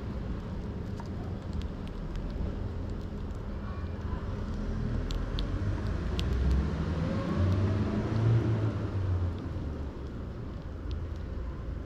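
A motor vehicle going past: a low rumble with a rising engine note that builds to its loudest about seven to nine seconds in, then eases off.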